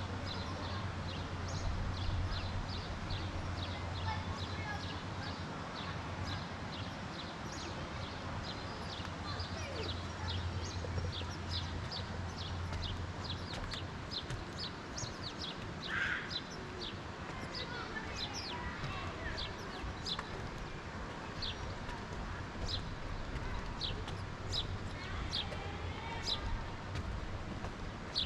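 Small birds chirping, a steady stream of short, high, falling notes, with one louder, lower call about halfway through.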